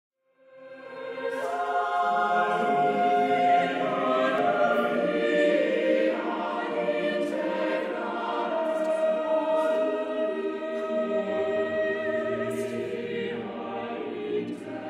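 A choir singing, fading in at the start and holding long sustained chords.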